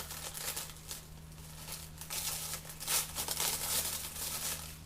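Packaging crinkling and tearing as a part is unwrapped by hand, in irregular rustling bursts that are loudest about two to four seconds in. A steady low hum runs underneath.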